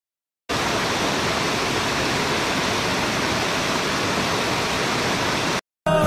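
Rushing water of a waterfall: a steady, even hiss that starts about half a second in and cuts off suddenly just before the end.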